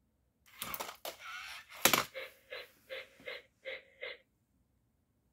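Toy robot stunt dog moving on a tile floor: a few plastic clicks and a sharp knock about two seconds in as it tumbles into a new pose, then six short buzzing pulses, about two and a half a second.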